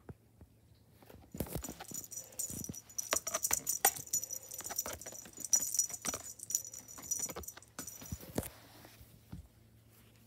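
Small bell jingling and rattling in quick, irregular shakes, with clicks, starting about a second in and stopping near the end.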